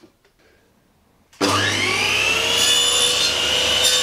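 A stationary power saw switched on about a second and a half in, its motor spinning up with a rising whine and then running steadily at speed. A few faint knocks from handling the wood come before it.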